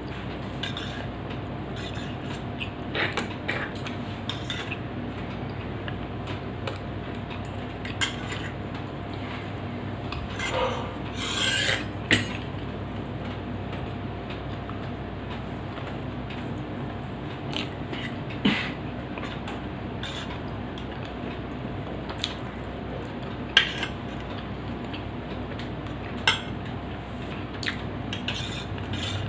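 A person eating a dry snack quickly: scattered chewing and crunching with a few sharp clicks, over a steady faint hum.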